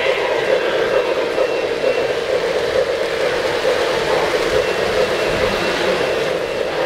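Model freight train's cars rolling past close by on the track, a steady rumble of wheels on the rails.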